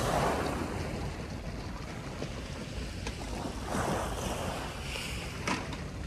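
Sea waves washing onto the shore, with two swells of surf, one right at the start and another about four seconds in.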